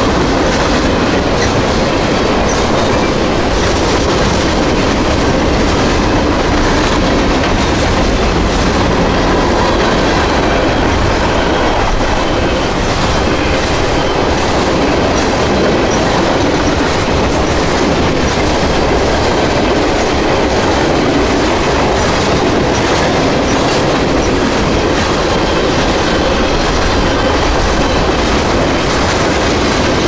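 Freight train cars rolling past close by: a steady, loud rumble with the clatter of steel wheels on the rails, unchanging in level throughout.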